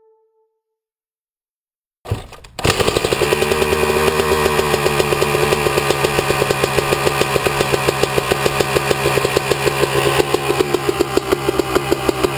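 About two seconds of silence, then a Kawasaki KX250 two-stroke dirt bike engine breathing through an FMF Shorty silencer comes in abruptly and runs steadily at idle with a fast, even pulse.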